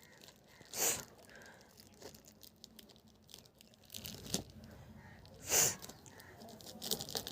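Tightly sealed headphone box packaging being worked at to open it: rustling, scraping and tearing of the wrapping and seal, with two louder scraping bursts about a second in and again past the middle, and a few sharp clicks.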